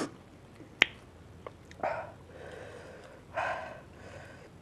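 Heavy breaths and sniffs, hissing in and out in three short bursts, from eaters working through fuchka each stuffed with a hot green chili; a single sharp click comes about a second in.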